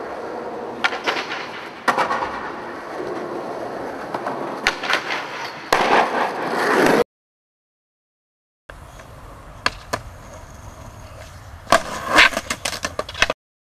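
Skateboard wheels rolling on smooth concrete, with sharp clacks of the board popping and landing; the loudest clatter comes about six seconds in. After a short break of silence, a second, quieter roll follows, ending in a clattering burst of board hits.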